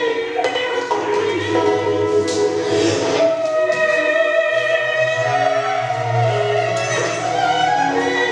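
Operatic singing in long, slightly wavering held notes over classical instrumental music.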